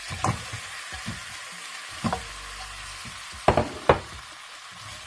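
Pork bones and curry paste sizzling in a hot wok as they are stirred, a steady frying hiss with a few short clacks of the spatula and meat against the pan, the loudest two close together about three and a half seconds in.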